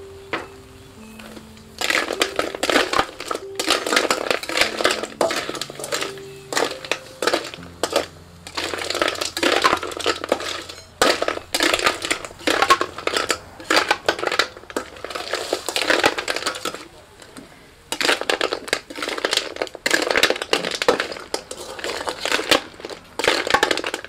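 Snail shells clattering and scraping against a metal wok as they are stirred with a metal ladle: dense runs of clicks and rattles in bursts with short pauses, starting about two seconds in.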